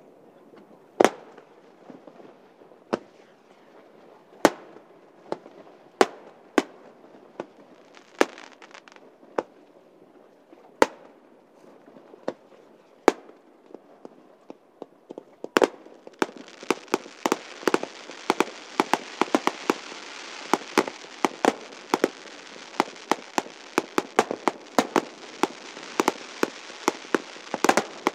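Aerial fireworks shells bursting: single sharp bangs every second or two, then about sixteen seconds in a rapid barrage of many bangs over a steady hiss.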